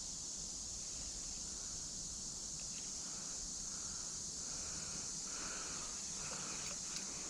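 Steady high-pitched insect chorus, a continuous shrill hiss, with a few faint ticks near the end.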